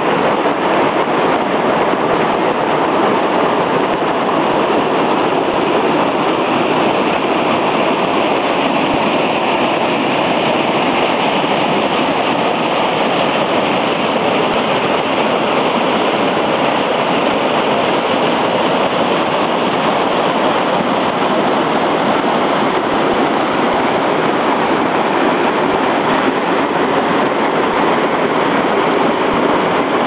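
Waterfall cascading over rocks into a creek pool: a loud, steady rush of water that does not let up.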